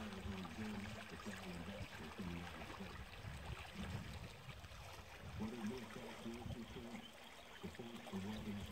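Water pouring out of a corrugated metal culvert into a lagoon: a steady trickling rush with low, wavering gurgles.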